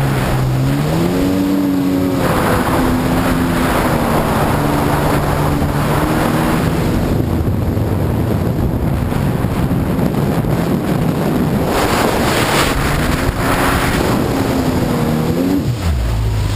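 Sea-Doo personal watercraft engine running at speed, its pitch dipping and climbing again in the first couple of seconds and falling sharply near the end, over rushing water spray and wind on the microphone.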